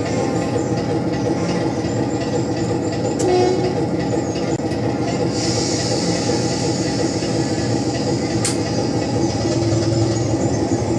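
Recorded train sound effects for a DC model locomotive, played through transducers on the layout's back scene: a continuous running rumble with rail clatter, a couple of sharp clicks, and a few seconds of hiss in the middle.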